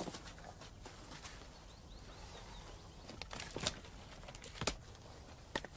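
Split firewood knocking together as logs are picked up off a woodpile: a few sharp wooden knocks from about three seconds in, after a quieter stretch of soft steps and rustling.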